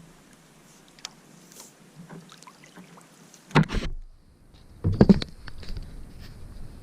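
Paddling a small boat on still water: light dripping and small knocks, then two louder paddle strokes about three and a half and five seconds in.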